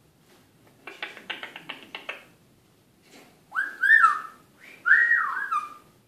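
Male eclectus parrot making a rapid run of clicks about a second in, then two whistles, each gliding up and then down in pitch.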